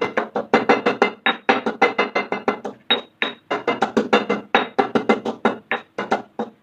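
Pestle pounding bird's-eye chilies and garlic in a mortar: quick, fairly even strikes about five a second with a couple of brief pauses, each strike with a short ringing tone.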